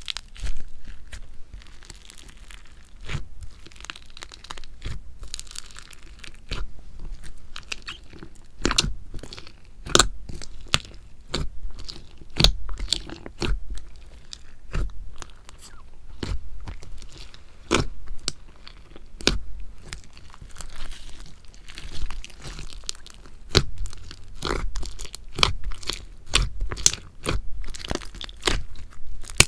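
Slime being squeezed and pressed by hand, giving crisp crunchy crackles and pops that come in swells about once a second.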